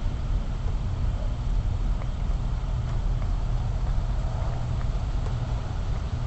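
Steady low hum with an even hiss over it, unchanging throughout: the noise floor of a wireless surveillance camera's audio link.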